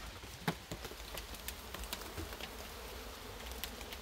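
Honeybees buzzing steadily around an opened nucleus colony box, with a few light knocks, the sharpest about half a second in.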